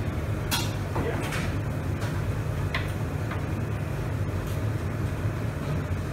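Steady low machine hum of kitchen equipment, with a few brief scratchy rustles as a hand works in a plastic tub of flour breading.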